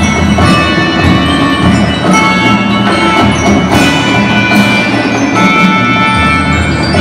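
Primary-school marching band playing a tune: brass and drums with ringing, bell-like tones over them, steady throughout.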